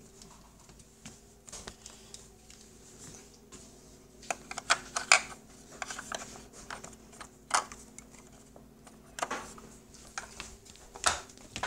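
Light, irregular clicks and knocks of crayons and colour pencils being handled and put back into a plastic art case, with a cluster of louder clicks about halfway in and another near the end.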